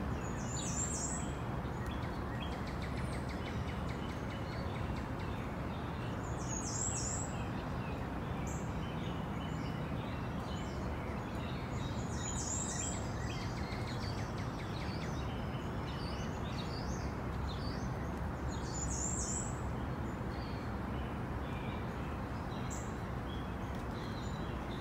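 A bird chirping in short high-pitched phrases that repeat about every six seconds, over a steady background hiss.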